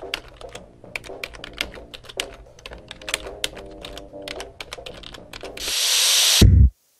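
Rapid typing on a computer keyboard, many quick key clicks over soft background music. Near the end a loud hiss swells up and ends in a heavy low hit, then the sound cuts off suddenly.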